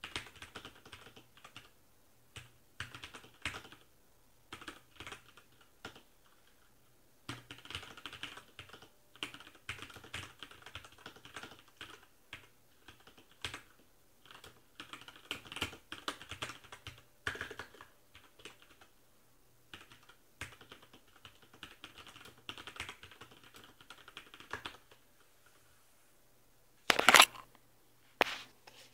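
Ozone Strike mechanical keyboard being typed on at regular speed, in bursts of rapid key clicks with short pauses between them. Near the end the typing stops, and there are two much louder knocks about a second apart.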